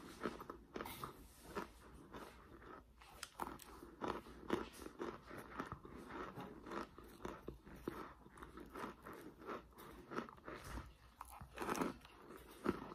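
A person biting and chewing chunks of crockpot-baked cornstarch: a steady run of small, irregular crunches.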